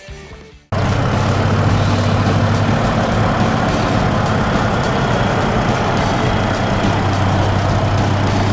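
Heavy truck engine running steadily. It starts abruptly about a second in, after a brief drop to near quiet.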